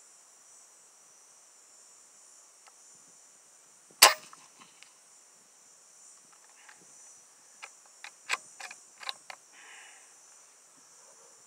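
A single sharp shot from a Hatsan Flash Pup .22 PCP air rifle about four seconds in, followed a few seconds later by a quick run of metallic clicks from handling the rifle's action. Crickets chirp steadily throughout.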